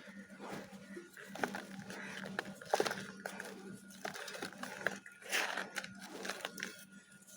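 Dry Multani mitti (Fuller's earth) clay chunks being crumbled: an irregular run of dusty crunches and small cracking snaps, busiest about three and five seconds in.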